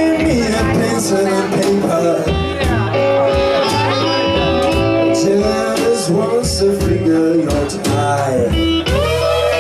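Blues band playing live: harmonica, electric guitar, bass and drums, with long held notes that bend in pitch over a steady drum beat.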